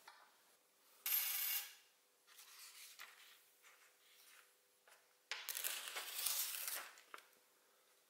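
Sheets of drawing paper in a bound pad being lifted and handled, rustling: a short loud rustle about a second in, softer rustles after it, and a longer loud rustle of about a second and a half just past the middle.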